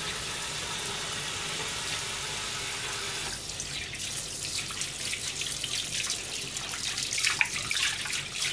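Kitchen tap running into a stainless steel bowl in the sink, a steady rush of water. About three seconds in it turns to uneven splashing with light clinks as a kitchen knife is rinsed in the bowl.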